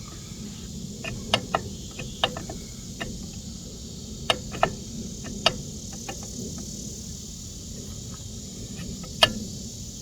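Scattered sharp clicks and taps of tools and metal parts being handled on a small engine, a few of them loud, over steady chirping of crickets.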